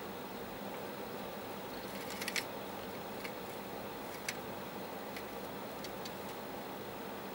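A live mouse moving about inside a wire-mesh cage trap: a few faint clicks and ticks, a small cluster about two seconds in and single ones after, over a steady hiss.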